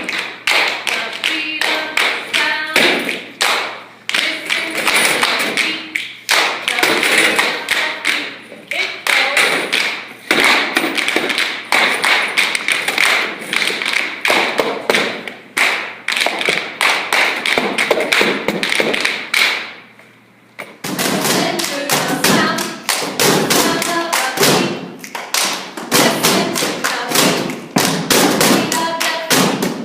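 A group stomping their feet and clapping their hands in a rhythmic cheer beat, with voices shouting along. The beat stops briefly about twenty seconds in, then starts again.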